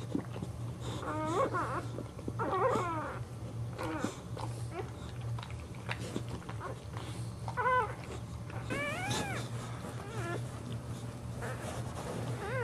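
Newborn boxer puppies squealing: several short, high cries that rise and fall in pitch, the loudest about nine seconds in, over a steady low hum.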